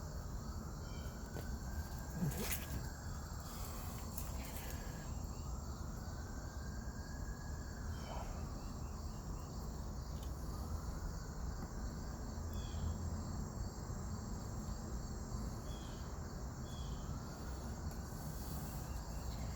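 Steady chirring of insects, with a low rumble underneath and a single sharp click about two and a half seconds in.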